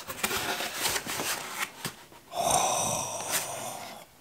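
Cardboard box flaps pulled open, rustling and crackling. A little past two seconds in, a long, breathy gasp of amazement that fades away.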